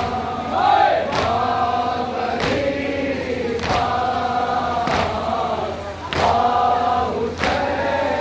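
A crowd of men chanting a Muharram nauha (lament) in unison, with a collective chest-beating slap of matam landing about every second and a quarter in time with the chant.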